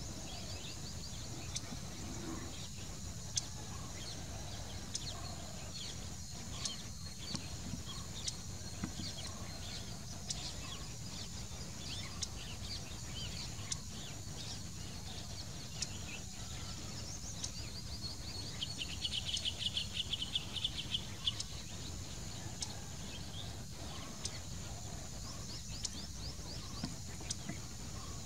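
Outdoor birdsong ambience: small birds give short sharp calls throughout over a steady high-pitched drone and a low rumble, with a fast rattling run of notes about two-thirds of the way through.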